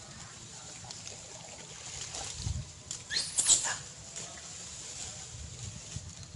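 Macaque giving a brief, high-pitched squeal about three seconds in.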